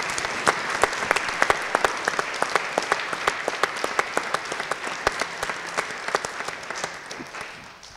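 Audience applauding in a lecture hall: many hands clapping steadily, dying away near the end.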